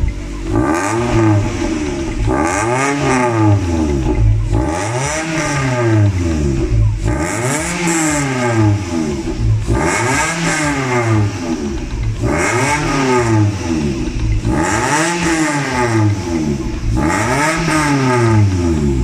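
Perodua Myvi Gen 1's 1.3-litre K3-VE four-cylinder engine revved repeatedly through a Max Racing M155-MY twin muffler, about every two seconds. Each rev climbs and falls in pitch.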